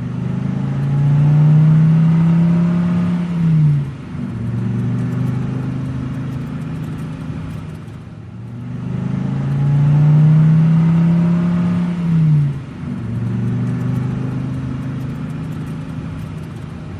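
Car engine sound effect: the engine runs steadily, swells and rises slightly in pitch, then drops sharply in pitch. The same pattern plays twice, about eight seconds apart, as if looped.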